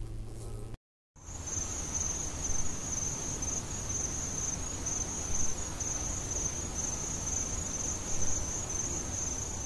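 Crickets chirring: a steady, high-pitched, finely pulsing trill over a low background hiss. It starts about a second in, after a brief drop to silence.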